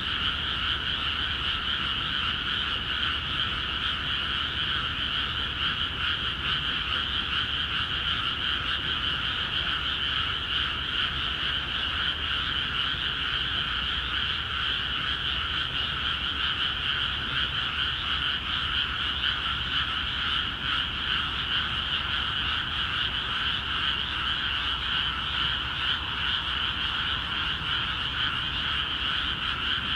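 A dense chorus of many frogs calling together in flooded rice paddies, steady and unbroken, with the calls merging into a continuous trilling din. It is a breeding chorus, set off by water entering the paddies.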